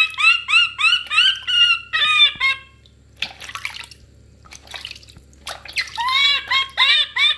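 Baby macaque crying in a run of short, high, duck-like squawks, about three a second, which break off after about two and a half seconds and start again about six seconds in. In the pause, water sloshes softly in the bath basin.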